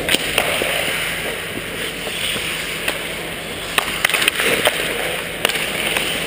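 Ice hockey play heard up close from the goal: skate blades scraping over the ice in a steady hiss, with a scatter of sharp clicks and knocks from sticks and puck, several in quick succession about four seconds in.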